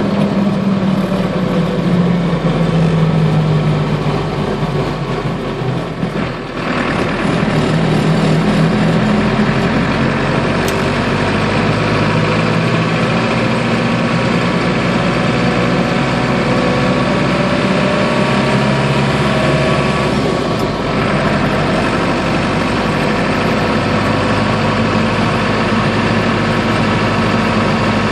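Land Rover 109 with a 2002 Defender Td5 turbo diesel engine under way, running steadily with its note falling and rising with speed, and a brief dip in loudness about six seconds in.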